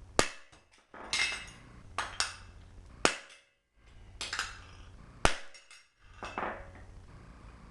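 About ten hammer blows on a metal bracket, some in quick pairs, each ringing sharply. A stuck pin is being driven out of a Flaming River power disconnect switch bracket without a punch.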